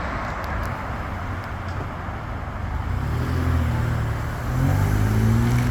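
Road traffic: steady tyre and road noise, with a vehicle engine's low hum coming in about three seconds in and getting louder near the end as it passes close by.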